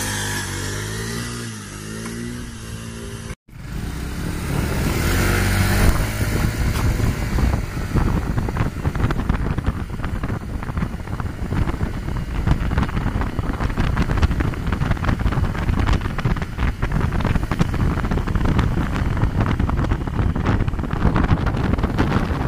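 Small motor scooter engine revving, its pitch rising and falling as the rider holds a wheelie. From about four seconds in, heavy wind buffeting on the microphone runs over the engine sound.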